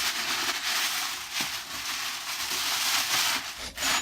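Steady rustling and crinkling of packaging being handled and pulled open.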